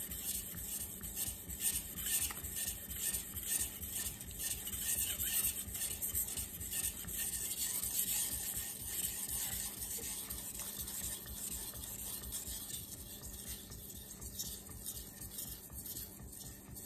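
Steel knife blade (a Miyabi Mizu SG2 kiritsuki) scraping in quick, rhythmic back-and-forth strokes on a wet 800-grit Japanese water stone, growing quieter near the end. The edge is being ground at the heel to remove micro chips, raising a big burr.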